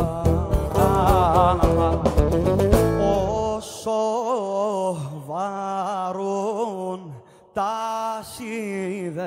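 Cretan-style band of laouto, bass and drums playing. About four seconds in the instruments drop away and a man sings alone in long ornamented phrases with wavering, sliding pitch.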